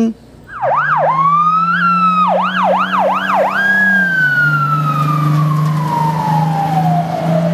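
Fire truck siren: a run of quick up-and-down sweeps starting about half a second in, then one long wail that falls slowly in pitch over the last few seconds, with a steady low drone underneath.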